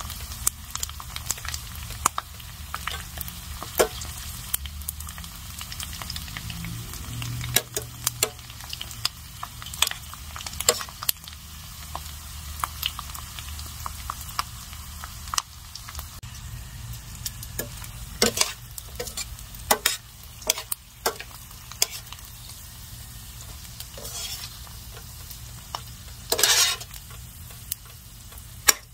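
Dried squid frying in oil in a stainless steel skillet: a steady sizzle broken by many sharp pops and clicks, with metal tongs tapping against the pan as the pieces are turned and lifted out. A louder burst of sizzling comes near the end.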